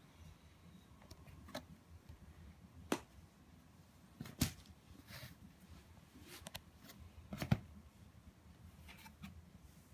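A cardboard cat-toy box being handled and set down on a carpet: soft rustles with scattered light taps and knocks, the sharpest about four and a half and seven and a half seconds in.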